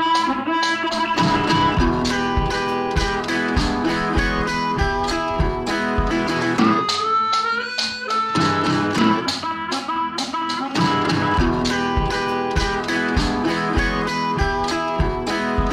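Background music led by plucked guitar over a steady beat, with one sliding note about halfway through.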